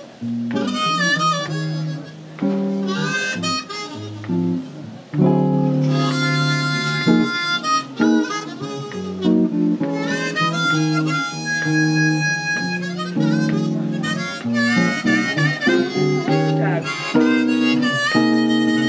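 Live harmonica and guitar duo: the harmonica plays a slow, bluesy melody with wavering, bent notes and a few long held notes, over jazz guitar chords.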